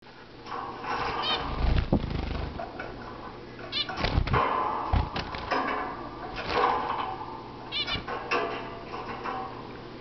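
Caged zebra finches calling: nasal, honking beeps given in several bunches, some with quick chirps, along with a few low thumps.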